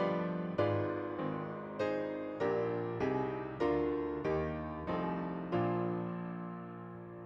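Slow piano music: chords struck about every 0.6 seconds, each dying away, with the last one held longer and fading out near the end.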